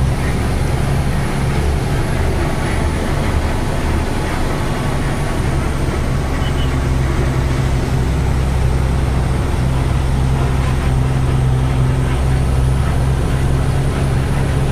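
Truck's diesel engine running steadily under way, heard from inside the cab, with a constant low hum and road noise.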